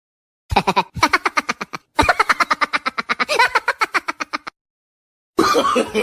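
Comedic laughing sound effect: rapid, cartoonish 'ha-ha-ha' laughter in two quick runs, the second longer, with a brief break between them. Another voice starts near the end.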